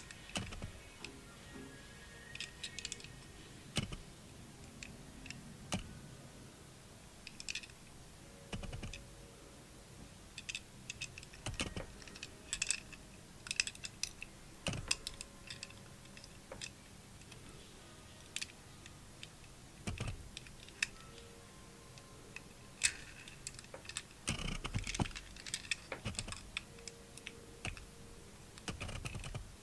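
Irregular small clicks and taps of fingers and nails handling a 1/64 die-cast Suzuki Jimny model, working the roof-mounted surfboard rack loose, with faint music underneath.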